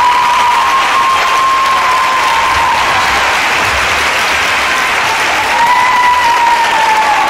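Audience applauding a finished roller-skating routine: dense, steady clapping with a long held high tone sounding over it.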